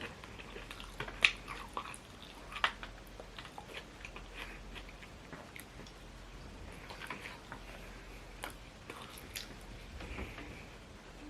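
A person chewing and eating close to the microphone: scattered wet mouth clicks and smacks, with a couple of sharper clicks in the first few seconds.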